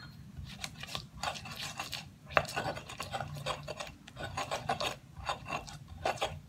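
Stone pestle (ulekan) grinding chilli sambal paste in a stone mortar (cobek): quick repeated rasping, scraping strokes, a few a second, with one sharper knock of stone on stone about two and a half seconds in.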